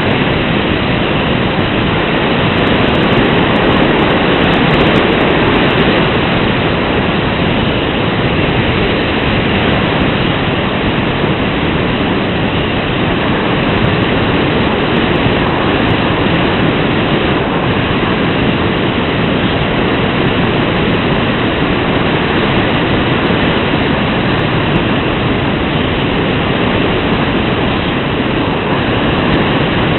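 Steady rushing wind noise on the microphone, with no engine tone or voices.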